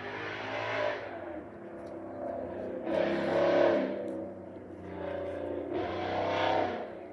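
Road traffic heard from indoors: cars going by, their noise swelling and fading three times over a steady low rumble.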